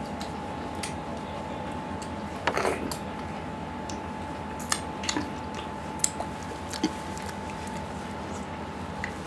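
Wet mouth sounds of a man eating chicken curry and rice with his hand: chewing, with a few sharp lip smacks and squelches, a cluster of them about two and a half seconds in and more scattered after, as he sucks and licks the curry from his fingers. A faint steady hum runs underneath.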